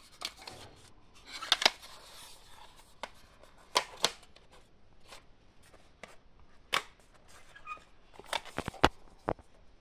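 Plastic audio cassette cases clicking and clacking as they are handled and pulled from a rack: scattered sharp clicks, with a quick run of them near the end.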